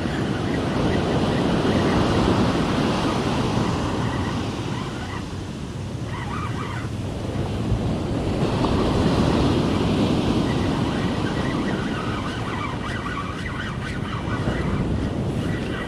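Ocean surf breaking and washing up the beach, swelling twice as waves come in, with wind buffeting the microphone.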